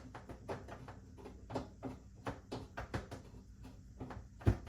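Small clicks and knocks from a screwdriver turning the bottom locking screw of a TV wall-mount bracket, with a louder knock near the end.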